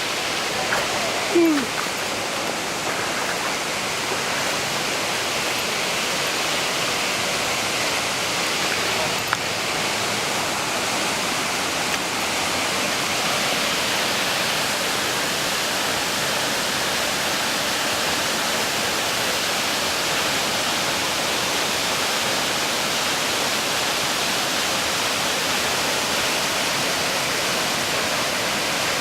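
Waterfall's steady rush of falling water. About a second in, a short sound dropping in pitch, likely a voice, rises briefly over it.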